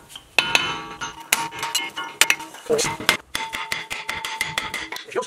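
Lump hammer driving a chisel against a front brake rotor's hat, well over a dozen sharp metal blows in an uneven run, with the cast-iron rotor ringing after them. The blows are meant to knock loose a rotor rusted onto the hub.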